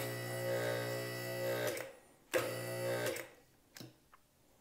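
Quickjack lift's electric hydraulic pump motor running with a steady hum for about two seconds, stopping, then starting again for about a second. The frames are being cycled up and down a few inches to work air out of the hydraulic system.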